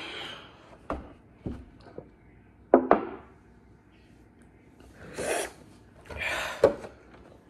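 Heavy, rasping breaths hissed in and out through the mouth, a reaction to the burn of a very hot chili chip, with a few short knocks and clunks from handling a plastic milk jug. The loudest knock comes about three seconds in.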